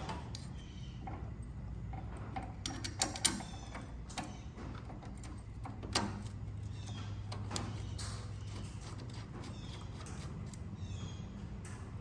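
Small metal clicks and taps as a fuel-line banjo fitting, bolt and copper washers are handled and fitted into a diesel injection pump, over a steady low hum.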